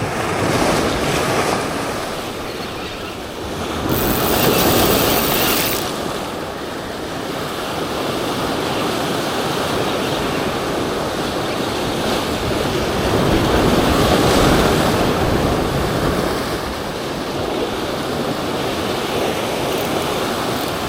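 Ocean surf breaking and washing over rocks in swells, loudest about four to six seconds in and again near fourteen seconds.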